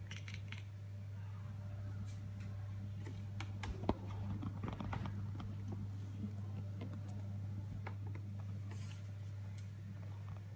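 Light clicks and taps of a cat's paws and claws moving on a plastic windowsill, with one sharp knock about four seconds in, over a steady low hum.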